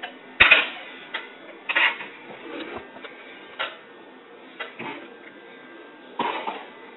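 Clatter and knocks of plates and dishes being handled and set down on a kitchen counter: about six short bursts, the loudest with a thump about half a second in.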